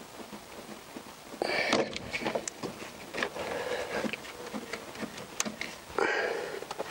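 Close hand-handling noise while working the rubber coolant hoses and clips on a plastic header tank: rubbing, rustling and small clicks, with a louder scraping burst about a second and a half in and another near the end.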